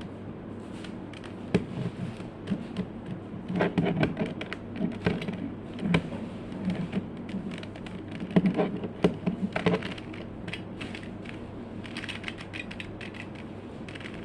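Plastic Rubik's cube being twisted by hand, its layers clicking and clacking in irregular flurries of quick turns with short pauses between.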